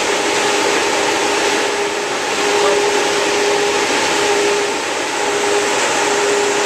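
Large electric fan blowing steadily: a constant rush of air with a steady hum underneath.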